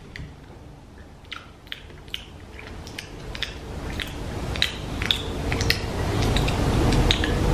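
A spoon clicking and tapping against a plastic mixing bowl as cake batter is stirred, in short irregular knocks a few times a second, over a low background rumble that slowly grows louder.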